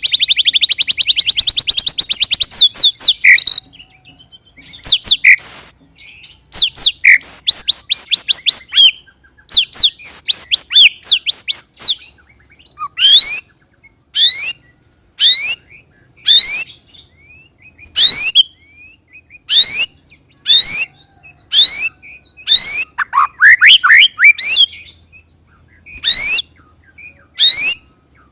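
White-rumped shama (murai batu) singing: a fast rolling trill to start, then short phrases of rising whistles, then single sharp upward-sweeping 'tembak' notes about one a second, with a quick burst of notes near the end. This rolling-and-shooting song is what shama keepers play as a lure to make other shamas answer.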